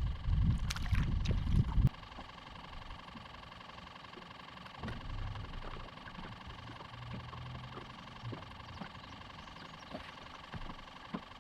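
A loud low rumble for about the first two seconds, then a steady mechanical hum with a thin whine from the boat's machinery.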